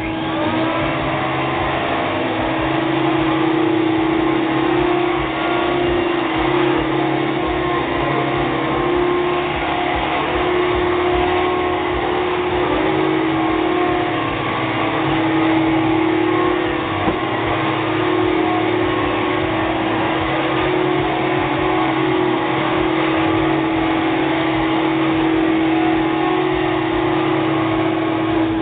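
Hoover Dimension 1000 canister vacuum cleaner running: its motor winds up to speed in the first second, then holds a loud, steady whine.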